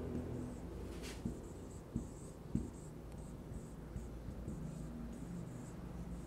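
A marker writing on a whiteboard in a run of short strokes, with three light knocks between about one and three seconds in.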